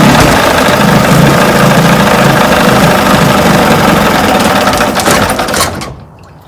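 1980 Chrysler 45 hp two-cylinder two-stroke outboard running steadily, then shut off about six seconds in, its sound falling away within about half a second.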